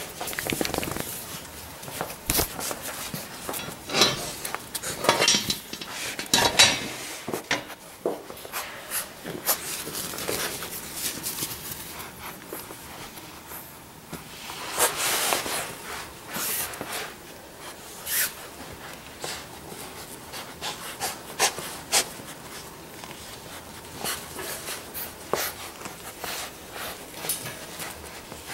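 Five-week-old Labrador retriever puppies playing with and chewing plush toys: irregular scuffling, rustling and small knocks, with longer noisy rustles about five and fifteen seconds in.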